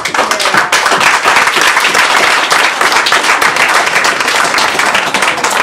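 A roomful of people applauding, many hands clapping densely and steadily.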